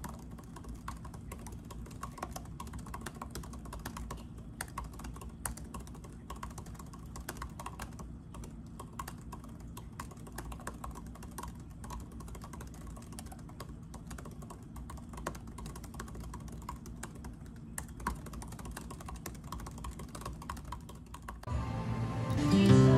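Typing on a 2020 MacBook Air's scissor-switch keyboard: a quick, irregular run of soft key clicks. Near the end, louder guitar music comes in.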